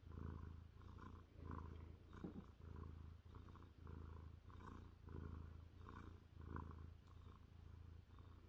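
Maine Coon cat purring, low and steady, close to a microphone between its paws; the purr swells and fades in regular pulses with each breath in and out.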